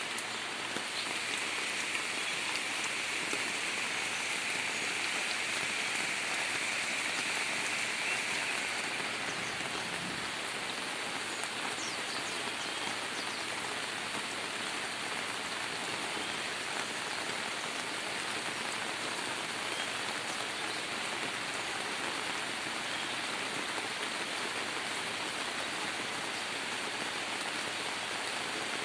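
Heavy rain falling steadily, a dense even patter and hiss. A higher hiss is stronger at first and eases off about nine seconds in.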